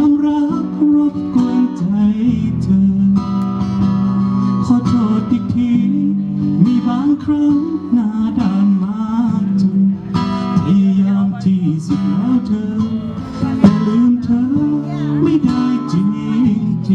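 Live music: strummed acoustic guitar with a sustained chord backing and a wavering melody line over it.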